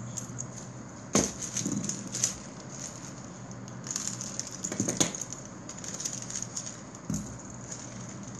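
Fidget spinners and their plastic packaging being handled: crinkling and rustling with several sharp clicks and knocks, the loudest a little over a second in and again about five seconds in.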